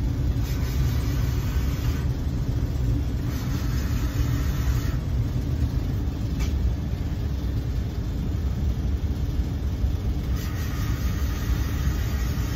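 Steady low machinery rumble with a faint hum, unchanging throughout, with a few faint clicks.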